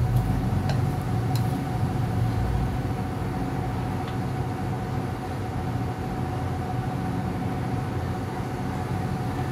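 Steady low mechanical hum with a faint high steady tone, and a few light clicks of chopsticks against a frying pan as fried potato slices are lifted out.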